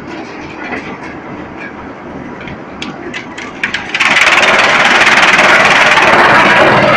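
Drum wood chipper running, with scattered sharp knocks of wood in the machine. About four seconds in, a much louder, steady chipping noise sets in abruptly and holds.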